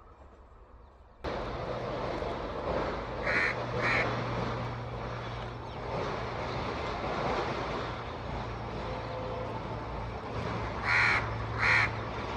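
Approaching Indian Railways diesel locomotive and passenger train: a steady engine drone with a low hum and rushing noise, which starts suddenly about a second in. Over it come two pairs of short, sharp calls, one pair a few seconds in and one pair near the end.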